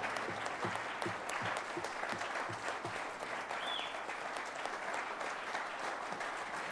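A congregation applauding, many hands clapping in one steady round.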